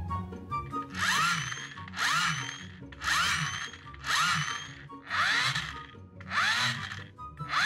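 Toy rover's gear motor and gearbox whirring in short bursts, about once a second, each with a whine that rises and falls in pitch as the wheels are driven back and forth by hand. The motor is being spun as a generator.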